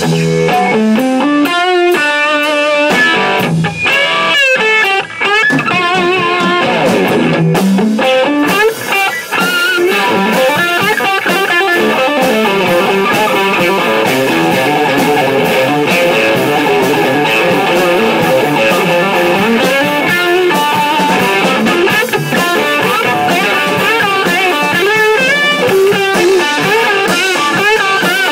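Electric guitar through an Analogman Sunface fuzz pedal with NKT275 germanium transistors into a Marshall 1987X Plexi reissue head and 4x12 cabinet, played loud and distorted. It plays lead lines and riffs with slides and bends, starting with a slide up.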